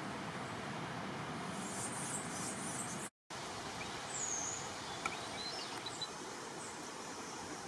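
Steady outdoor forest ambience, a constant hiss, with a short high bird chirp about four seconds in and a few faint high chirps after it. The sound cuts out for a moment about three seconds in.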